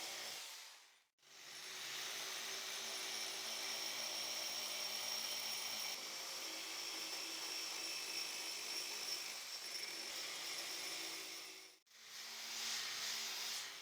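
Power sander with an abrasive mushroom-shaped disc running steadily as it grinds wood away, with two short breaks, about a second in and near the end.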